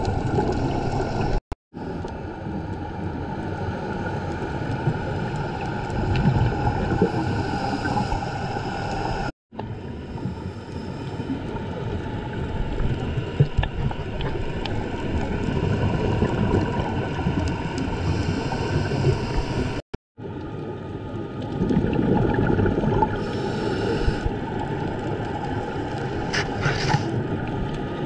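Underwater sound through a GoPro's waterproof housing: a steady muffled rumble and hiss with a few louder surges. It cuts out to silence for a moment three times.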